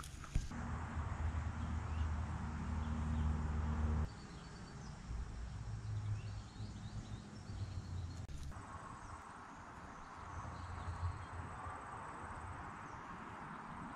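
Outdoor ambience: a low hum and rumble, loudest in the first four seconds and dropping off abruptly, with faint high chirps scattered through.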